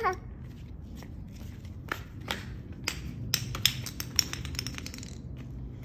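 Scattered light taps and clicks of small children playing on a tile floor, with a short child's vocal sound at the very start. A low steady hum comes in about halfway.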